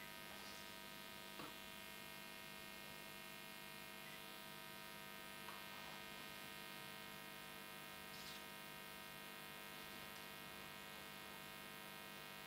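Near silence over a steady electrical hum with many even overtones, broken by a few faint soft knocks.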